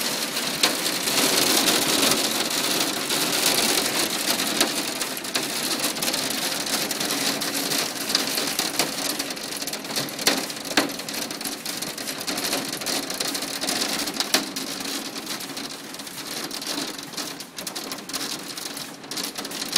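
A hail storm: hailstones hitting the house, window and ground in a dense, steady clatter, with many sharper individual hits standing out. It eases a little toward the end.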